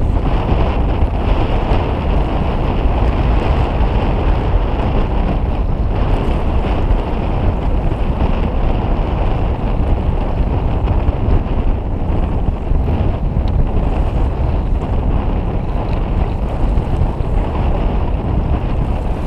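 Steady rush of wind buffeting the microphone, with choppy sea water washing against the kayak.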